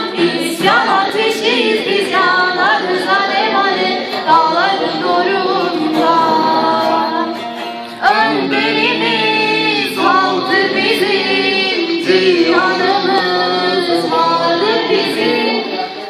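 A young woman sings a folk song into a microphone, with a bağlama (long-necked Turkish saz) played along with her voice. About eight seconds in, the music dips briefly and starts a new phrase.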